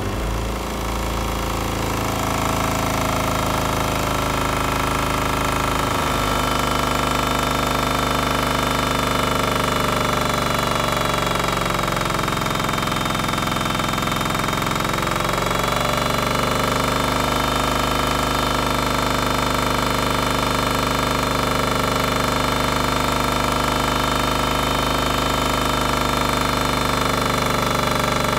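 Kohler single-cylinder diesel engine running at high speed under dyno load on biodiesel. About halfway through, its speed sags and then picks back up.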